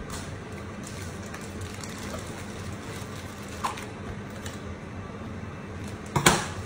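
Quiet handling of a piping bag as cream is piped onto a cake, over a steady low hum, with a short loud knock a little after six seconds as a decorating tool is picked up or set down.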